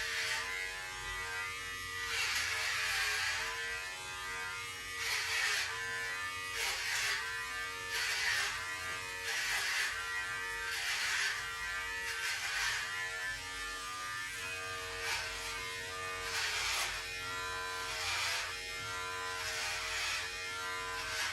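Electric hair clippers buzzing steadily while shaving a head, with a rush of cutting noise every second or two as each pass goes through the hair.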